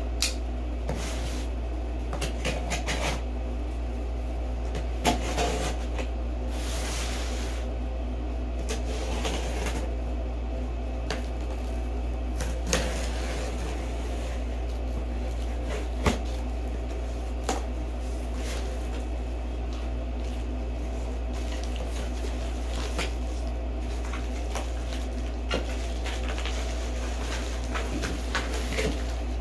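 A cardboard shipping box being opened by hand: packing tape slit, flaps scraping and rustling, with scattered knocks and clicks and a longer rasp about seven seconds in. A steady low hum runs underneath.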